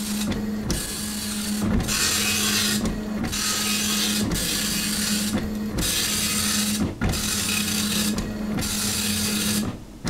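Desktop printer printing line by line: a rasping pass of the print head, broken by a short pause about every second and a half, eight passes in all. A steady low hum runs underneath.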